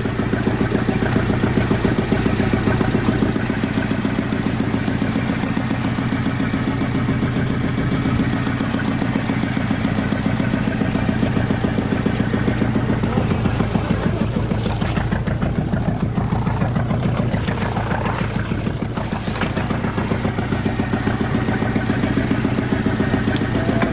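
Small fishing boat's engine running steadily at an even speed, a low, constant hum, with a few knocks partway through.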